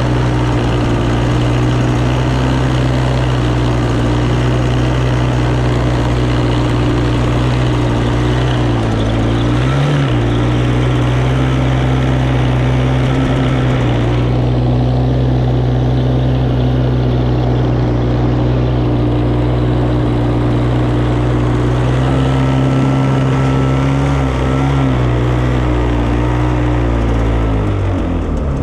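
A vehicle engine running at a steady speed. Its pitch dips briefly twice and falls away near the end.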